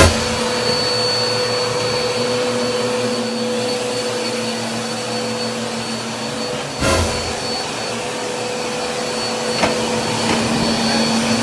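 Household vacuum cleaner running steadily with a constant motor whine, with a single knock about seven seconds in.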